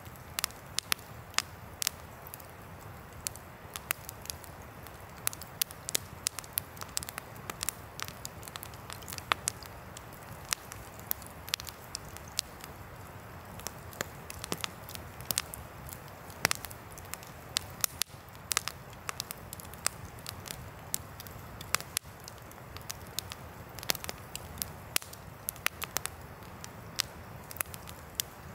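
Wood campfire crackling, with frequent irregular sharp pops and snaps over a steady background rush.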